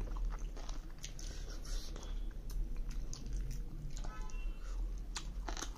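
Close-up mouth sounds of eating chicken off the bone: wet sucking, lip smacks and small chewing clicks, irregular throughout, over a low steady hum.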